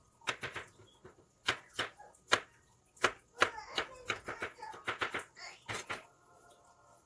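Kitchen knife dicing small potatoes on a cutting board: an irregular run of sharp knocks of the blade on the board, stopping near the end.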